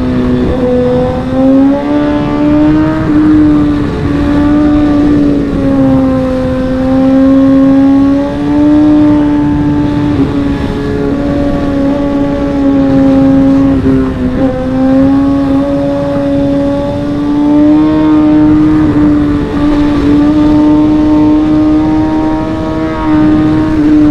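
Superbike's inline-four engine running at high revs under way, its pitch rising and falling slightly with the throttle and dipping briefly about halfway through, over steady wind noise.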